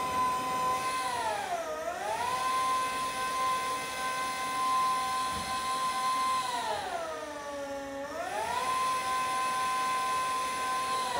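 Yale ERP30 electric forklift's motor whining at a steady high pitch, sagging down in pitch and climbing back twice, about two seconds in and again about seven to eight seconds in.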